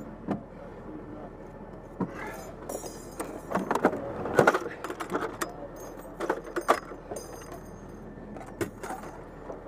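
Irregular metallic clinking and knocking from spent brass and ammunition being handled and shifted around an M2 .50 caliber machine gun turret, over a steady low background hum; no gunfire.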